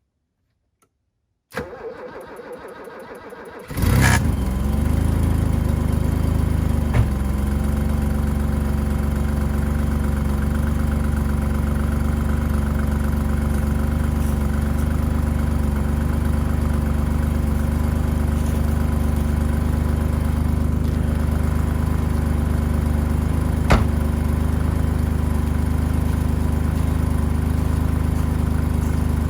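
Cold start of a 1985 BMW 535i's M30 straight-six: the starter cranks for about two seconds, then the engine catches with a loud flare and settles into a steady cold idle, with a couple of brief clicks over it. The car has sat for months in 19°F cold and has an exhaust leak where the headers meet the catalytic converter.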